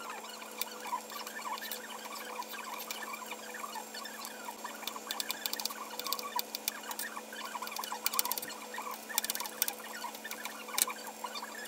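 Kitchen knife cutting through cucumber and striking an Epicurean composite cutting board, in quick runs of chops around the middle and near the end, over many small crisp crunching clicks.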